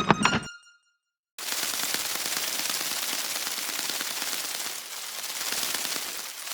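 A dense, steady crackling noise that starts suddenly about a second and a half in, after a short silence that follows the last notes of bouncy music.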